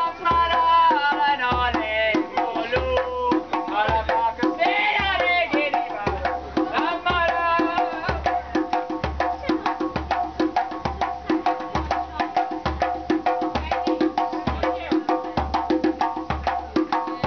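Hand-drum circle playing: deep djembe bass strokes on an even beat about every two-thirds of a second, under fast, dense slaps and clicks of hand percussion. Voices are heard over the first several seconds.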